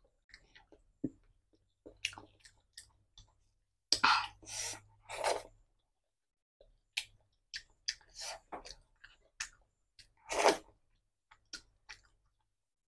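Close-miked chewing and mouth noises of someone eating rice and fish curry by hand: short wet smacks and clicks with pauses between, a few louder bursts about four to five seconds in and again near ten seconds.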